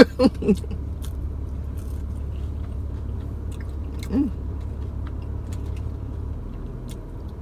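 Someone chewing a soft sandwich with small wet mouth clicks, over the steady low hum of a car cabin. A short closed-mouth hum of a voice comes about four seconds in.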